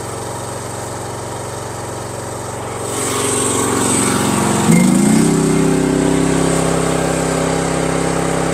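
Kymron YH14 mini excavator's Briggs & Stratton gas engine running steadily at mid throttle. About three seconds in it starts to get louder, and about five seconds in its pitch steps up as it is throttled to full, then holds there.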